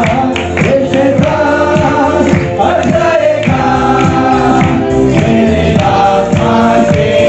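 Gospel song with a group of voices singing together over instruments and a steady beat.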